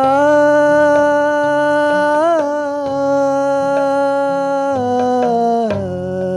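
Devotional Shiva bhajan music: one long held melodic note, with a brief waver about two seconds in and two small steps down in pitch near the end. Lower accompanying notes change beneath it.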